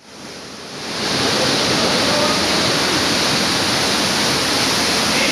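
Waterfall and fast-flowing water: a steady, even rush that fades in over the first second.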